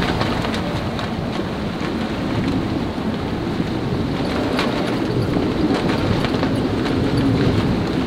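Gale-force wind of about 40 knots rushing steadily over a small sailing yacht's cockpit and the breaking sea, with scattered water drops ticking against the boat.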